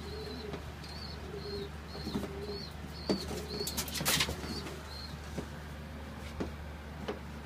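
Pigeons cooing over and over, with a few light knocks and a brief rustle about four seconds in.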